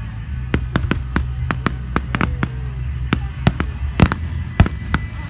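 Aerial fireworks bursting in a quick, irregular string of sharp bangs, about three a second, with the two loudest about four and four and a half seconds in.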